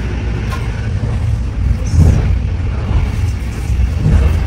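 Steady low rumble of a passenger train running, heard from inside the carriage, with louder swells about two seconds in and near the end.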